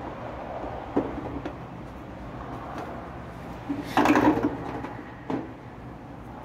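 The top cabinet of a Mabe top-load washer being handled and shifted: a sharp knock about a second in, a louder rattling clatter around four seconds in, and another knock a second later.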